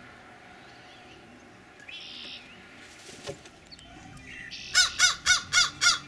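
American crow cawing in a quick series of five caws, about four a second, near the end.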